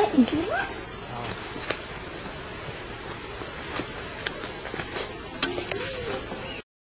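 Steady, high-pitched drone of a forest insect chorus, which cuts off suddenly near the end.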